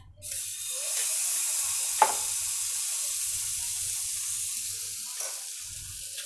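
Puda batter poured onto a hot nonstick tawa and spread with a ladle, sizzling. The hiss starts suddenly a moment in and slowly fades, with one sharp tap about two seconds in.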